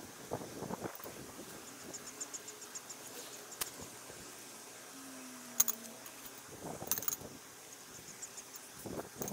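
Rustling and handling noises as a rope is uncoiled on grass, with a few sharp clicks, the loudest just past halfway. Twice, an insect chirps in a short trill of fast, high ticks.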